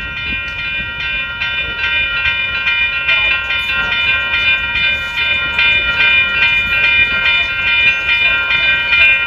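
Grade-crossing warning bell ringing steadily, about three strikes a second, over the low rumble of a passing freight train.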